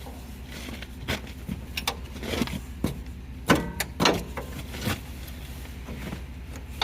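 Metal clanks and knocks, about six in a few seconds, a couple of them ringing briefly, from working at a seized trailer-hitch part that won't move. A steady low hum runs underneath.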